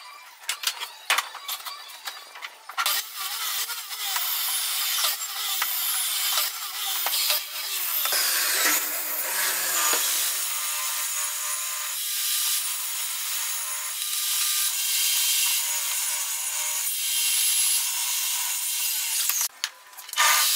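Power saws cutting pine: a miter saw crosscutting boards into short blocks, then a table saw, sounding almost without a break after a few knocks of wood being handled at the start. Falling whines come and go as the blade runs down between cuts.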